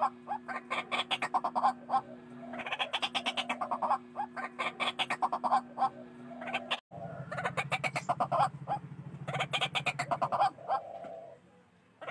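White-breasted waterhen calling in repeated bouts of rapid, harsh, chattering notes, several notes a second, each bout lasting a second or two. A low steady hum lies underneath, and it changes after a short break about seven seconds in.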